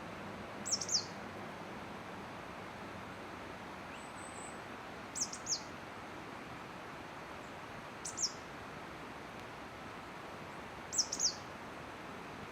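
A small wild bird giving short, high, thin calls in quick pairs or triplets, each note sweeping downward, four times a few seconds apart, over a steady background hiss.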